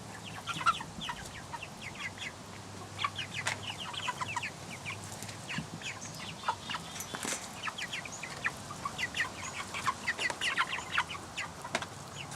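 Backyard chickens clucking and peeping, many short calls overlapping without a break.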